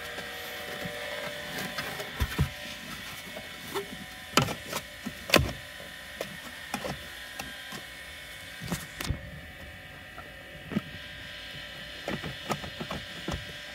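Hard plastic armrest box being handled and fitted onto a car's centre console: scattered knocks, taps and clicks of plastic on plastic, a few sharper ones in the first half and a cluster near the end.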